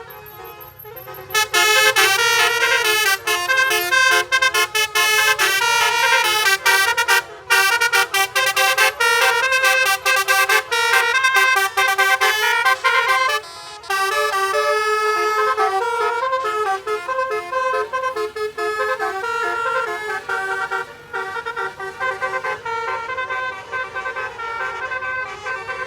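Basuri multi-tone musical horn playing a tune in a run of short pitched notes, with a couple of brief pauses.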